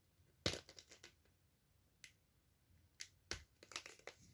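Small plastic packaging being pried and twisted by hand, making sharp clicks and crackles: a loud click about half a second in, a few single clicks, then a quick cluster near the end. The packaging is stubborn and hard to open.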